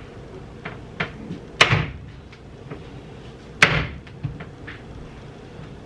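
Kitchen knife hacking sausage on a cutting board with hard, slamming strokes: a heavy whack about every two seconds, the loudest about three and a half seconds in, with lighter knocks in between.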